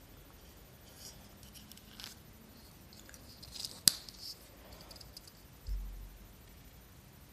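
Opinel No. 8 folding knife with a hornbeam handle being opened by hand: faint scraping and small ticks as the blade swings out of the handle, with a sharp metallic click about four seconds in as it comes fully open. A short dull thump from handling follows near the end.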